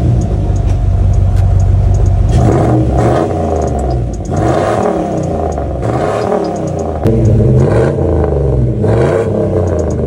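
Dodge Ramcharger V8 running loud through a Flowmaster Super 10 cat-back exhaust. It holds a steady note for the first two seconds or so, then is revved up and down several times, with a sharp jump in loudness about seven seconds in.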